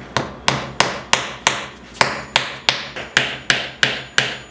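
Hammer striking a wooden peg, driving it down through stacked layers of corrugated cardboard: steady, even blows about three a second, each a sharp knock with a short ring.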